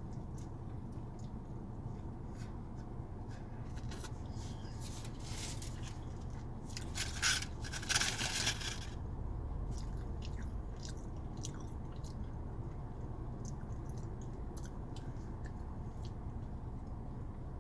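A person chewing and biting into a burrito, with small wet mouth clicks. A louder rustling spell comes about seven to nine seconds in. A steady low hum runs underneath.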